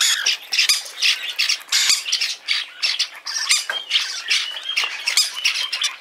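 Hand-fed peach-faced lovebird chicks giving harsh, rasping begging squawks over and over, several calls a second without a break, as they take soaked seed from a palm.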